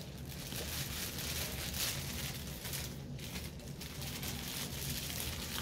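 Thin clear plastic bag crinkling and rustling in irregular crackles as it is pulled down over a head and tucked in by hand.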